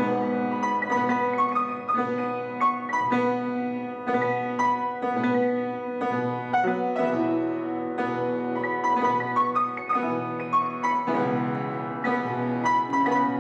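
Piano music: a melody of single notes picked out over held lower notes, at an even pace.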